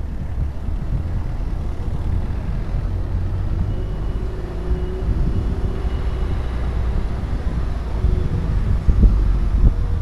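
Wind buffeting the microphone of a Niceboy VEGA X PRO action camera with its wind-noise filter off, over a steady low rumble of riding along the road. A few knocks come near the end.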